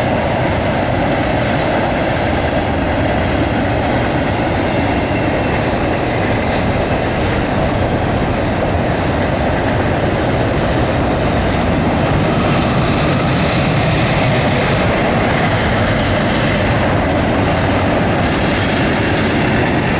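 Double-stack intermodal container well cars of a freight train rolling past: a steady noise of steel wheels on the rails.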